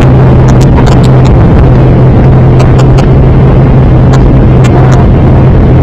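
Airliner engines heard inside the cabin during takeoff: a loud, steady roar with a constant low hum, and scattered short ticks.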